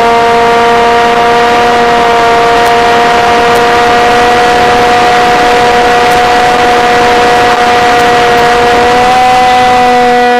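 Steady, loud whine of an RC airplane's motor and propeller heard from a camera on board, over rushing wind; the pitch steps up slightly about nine seconds in.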